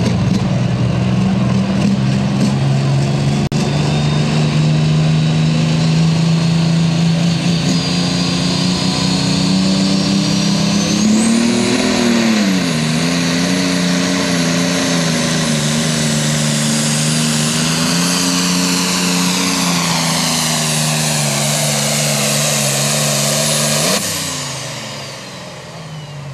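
Turbocharged diesel engine of a John Deere super stock pulling tractor running flat out under load on a pull. A high turbo whine climbs slowly to a steady scream, and the engine note dips and wavers about halfway through as the load builds. Near the end the throttle is cut: the engine drops away suddenly and the whine slides down as the turbo spools down.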